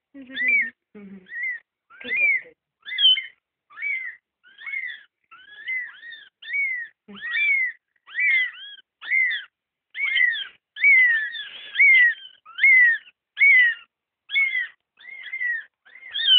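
Newborn kittens mewing: a steady run of short, high-pitched cries, each rising and then falling, about one and a half a second.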